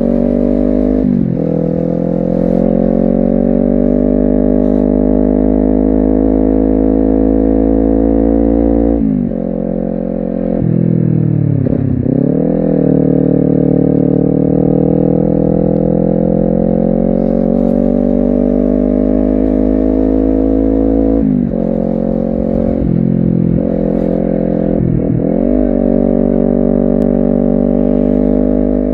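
Honda CBR250RR's engine and exhaust under way, the revs climbing slowly in long pulls. The pulls are broken by short throttle-off drops: once about a second in, a dip and pick-up about a third of the way through, and several quick ones in a row past two-thirds of the way, typical of gear changes.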